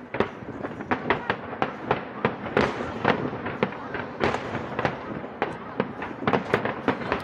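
Fireworks display: a rapid, continuous run of sharp bangs and crackles, several a second, with voices of the watching crowd underneath.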